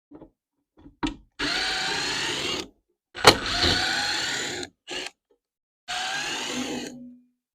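Power drill-driver running in three bursts of about a second each, its motor pitch wavering under load as it works screws in wood, with a sharp knock at the start of the second burst.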